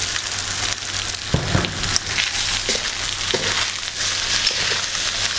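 Cream and pesto pasta sizzling in a hot stainless steel wok, the burner just turned off, while the pasta is stirred and tossed through the sauce. A few light clicks and a soft thud come from the stirring.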